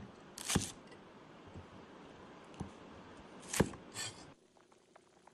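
Cleaver chopping through peeled winter bamboo shoots on a wooden cutting board: a handful of crisp single chops, the loudest about half a second in and at about three and a half seconds.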